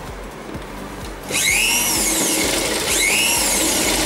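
Brother electric sewing machine running in two short bursts of about a second each, starting about a second in. Each time the motor whine rises in pitch and then falls.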